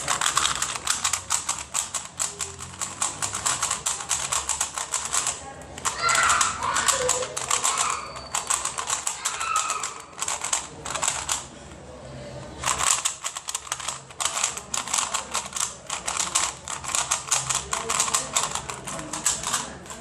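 Rubik's Speed Cube being turned rapidly by hand: a dense, fast run of plastic clicks and clacks, breaking off briefly about six and twelve seconds in. The cube is new and still a little stiff, with Maru cube lubricant being worked in.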